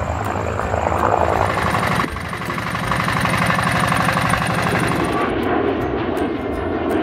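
Three sound samples one after another: a rough roaring sound that ends about two seconds in, then a fast, even chopping rhythm, then from about five seconds in the engine noise of an airplane.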